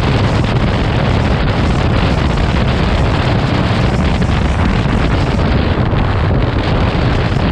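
Steady, loud wind rushing over the microphone of a camera riding on a Yamaha Super Ténéré 1200 motorcycle under way, with the bike's running and road noise mixed underneath.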